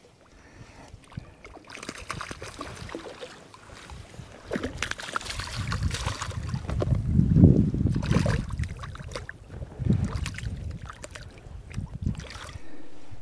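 Water splashing and sloshing in irregular bursts, mixed with low rumbling gusts on the microphone.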